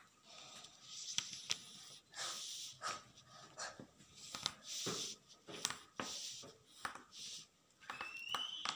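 Scratchy strokes of a pencil drawing along a plastic ruler on cotton fabric, with the cloth rustling under the hands and a few light taps.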